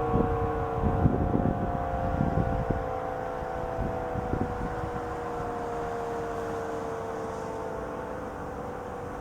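ACA P-50 tornado siren sounding its chord of tones, with the pitch slowly sliding down and the level fading: the siren winding down near the end of its three-minute alert. Wind gusts rumble on the microphone underneath.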